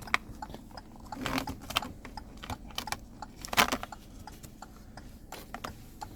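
Small plastic clicks and taps as the climate control panel and its wiring connectors are handled and fitted, with a louder clatter about a second in and a sharper click about three and a half seconds in.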